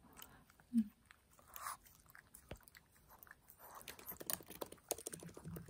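Maltese dog licking a person's fingers: faint, wet mouth sounds and small clicks of its tongue, coming more often in the second half.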